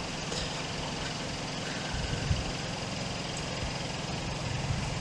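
A boat's engine running steadily with a low, even hum and a fine regular pulse.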